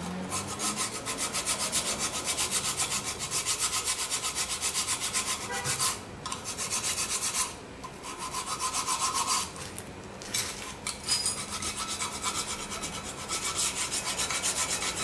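A hand file rasping rust off the pad-clip seats of a rusted brake caliper mounting bracket, in quick back-and-forth strokes of about five a second. The strokes stop briefly around six and eight seconds in and again near ten seconds.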